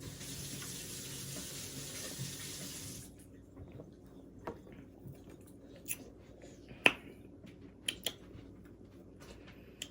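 A steady liquid hiss of fizzing soda for about three seconds, cutting off suddenly, then a few faint scattered clicks.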